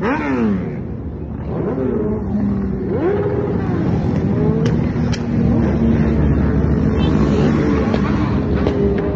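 Motorcycles, sport bikes among them, riding past one after another. In the first few seconds engines rev and drop in pitch as each bike goes by, then several engines run together in a steadier drone.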